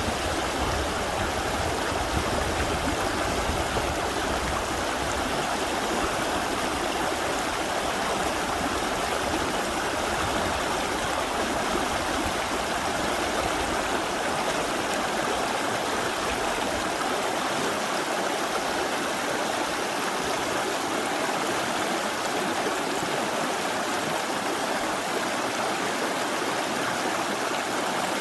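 Mountain valley stream rushing over rocks in a steady, even wash of water.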